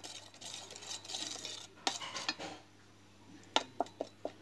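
Metal spoon stirring and scraping thick tamarind chutney around a stainless steel pan, then several sharp clinks of the spoon against the pan near the end.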